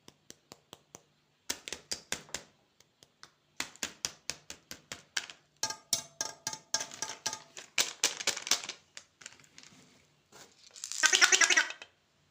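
Candy packaging being handled and unwrapped: a run of sharp crinkles and clicks that grows denser in the middle, with a louder burst of crinkling about a second before the end.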